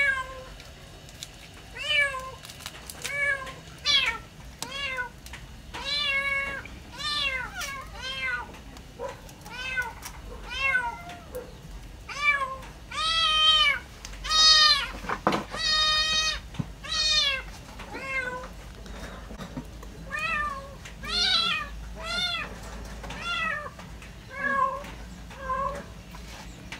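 Kittens meowing over and over, short calls that rise and fall in pitch about once a second, sometimes two at once, loudest in the middle stretch. They are caged kittens begging for food as a bowl of fish is brought to them.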